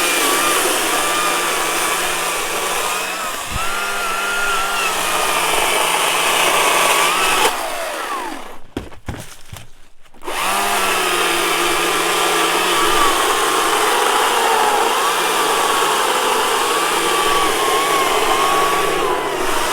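GreenWorks battery chainsaw cutting through a branch, its electric motor's whine wavering in pitch under load. It winds down and stops about eight seconds in, then starts again about two seconds later and keeps cutting.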